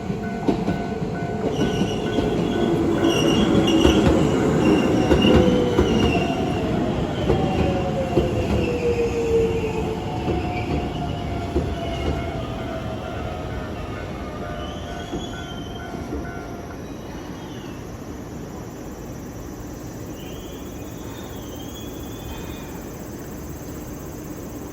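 Keisei 3600-series electric train passing over a level crossing, loudest about four to six seconds in and then fading away, with wheel squeal from the rails. A steady ringing tone, likely the crossing warning bell, runs until about two-thirds of the way through and then stops.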